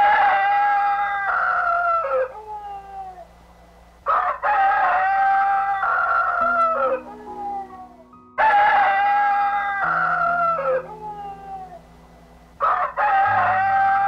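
Rooster crowing four times, about four seconds apart, each crow a long call that ends in a falling tail.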